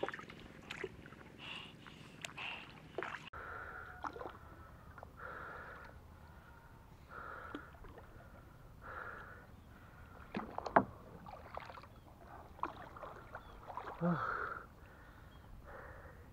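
Paddle strokes swishing through the water of a small rowing boat being paddled across a pond, one every second and a half to two seconds. A few sharp knocks come in between, the loudest about two-thirds of the way through.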